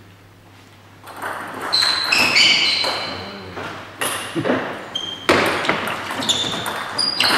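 Table tennis doubles rally: the ball clicking sharply off rackets and table several times, with short high squeaks of shoes on the wooden hall floor, echoing in the hall. It is quiet for about the first second, before the rally starts.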